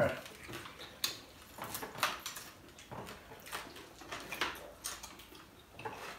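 People eating at a table: chewing and mouth noises, with irregular light clicks of forks on plates, about one a second.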